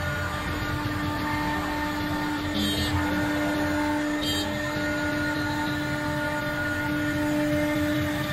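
CNC router spindle running steadily with a constant hum while its cutter mills letter grooves into a white plastic sheet. Two brief high squeaks come from the cut, about two and a half and four seconds in.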